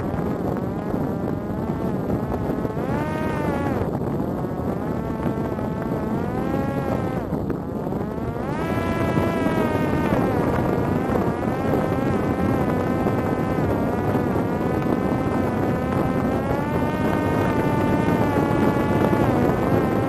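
Parrot Disco fixed-wing drone's electric motor and propeller buzzing in flight, heard from the onboard camera. The pitch dips twice in the first eight seconds, then climbs and holds higher with slow wavers.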